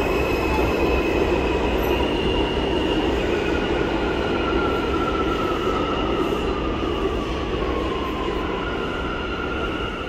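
R160 subway train running in the tunnel, its steel wheels squealing on the rails in several long, high tones that slowly shift in pitch over a steady rumble. The sound fades gradually toward the end.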